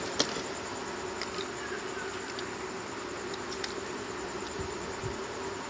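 A steady electrical buzz on the workbench, with a small click just after the start and a few faint ticks of handling.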